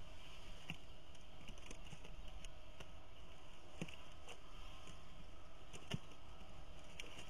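Steady faint hiss with irregular light clicks and taps, about nine in all, as falcon chicks shuffle and flap on the stick nest and rock ledge.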